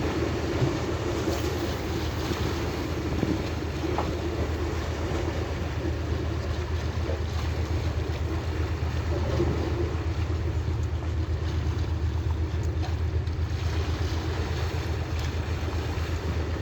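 A boat engine running steadily with a low, even hum, with wind on the microphone and water noise over it.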